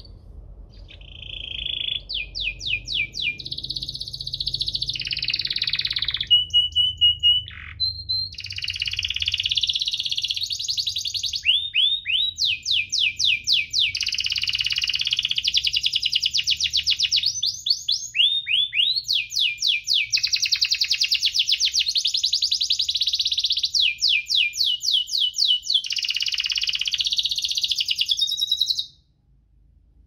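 Domestic canary singing a long, nearly unbroken song of fast trills, rolls and rapidly repeated chirps, stopping suddenly near the end.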